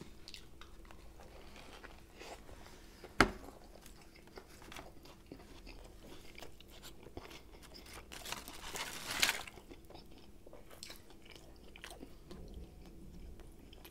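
Close-miked chewing of a large sandwich, with soft wet mouth clicks throughout. A single sharp click stands out about three seconds in, and a longer crunchy crackle comes around nine seconds.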